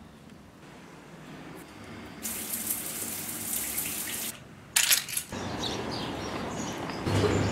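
Water running from a tap or shower, starting about two seconds in and stopping sharply about two seconds later. A brief loud noise follows about a second after it stops.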